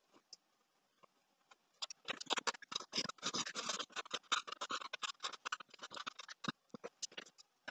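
Pencil scratching on paper in quick, dense strokes, starting about two seconds in and thinning out to a few scattered taps near the end.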